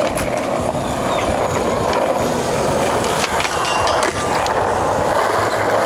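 Skateboard wheels rolling on smooth concrete, a steady rolling rumble, with a few light clacks from the board about two, three and four seconds in.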